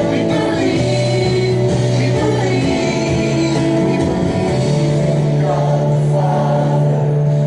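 Worship song: voices singing over instrumental accompaniment, with long held bass notes that change pitch every couple of seconds.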